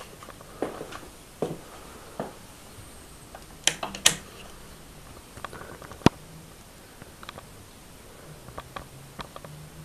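Scattered clicks and light knocks from handling a V&A VA18B digital multimeter. Two sharp clicks come about four seconds in, as its rotary selector dial is turned. A single sharper click follows about six seconds in, and there are a few small ticks near the end.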